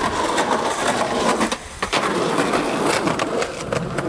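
Skateboard wheels rolling over a concrete walkway, with clacks and knocks of the board. The rolling drops out briefly about a second and a half in, then comes back with a clack.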